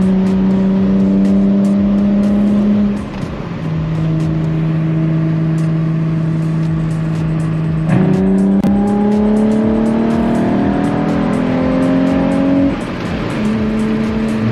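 2008 Nissan 350Z Nismo's 3.5-litre V6 heard from inside the cabin under way, with road noise. The engine note drops about three seconds in and holds steady, then rises in pitch under acceleration from about eight seconds in before dropping again near the end.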